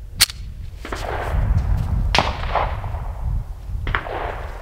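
Gunshots: two sharp cracks about two seconds apart, over a steady low rumble and hiss.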